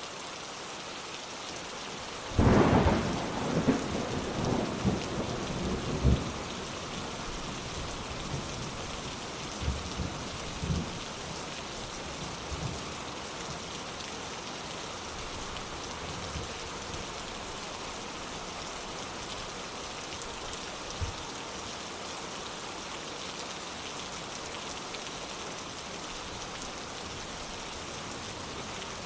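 Steady heavy rain hissing, with a sudden crackling thunderclap about two seconds in that rolls on for a few seconds, then softer rumbles of thunder and a single brief crack later on.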